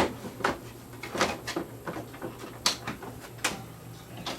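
Plastic clicks and clacks of a Samsung CLP510 colour laser printer being reassembled, its parts and covers pushed and latched back into place: half a dozen separate sharp knocks, the loudest at the very start.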